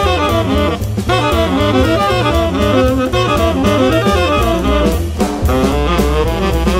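Jazz quartet playing: tenor saxophone running fast lines over double bass and a drum kit with cymbals.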